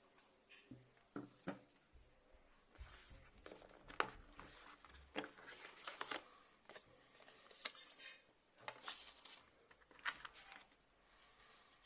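Cardboard smartphone box and its paper inserts being handled: scattered light taps, scrapes and rustles of cardboard, with a sharper tap about four seconds in.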